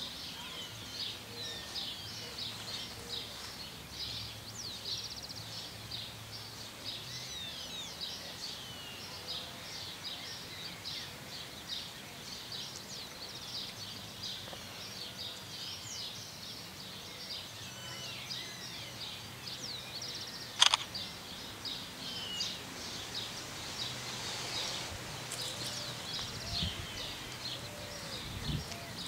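Many small birds chirping and singing in quick, overlapping calls, over the faint low hum of a distant diesel locomotive's engine. A single sharp click sounds about two-thirds of the way through.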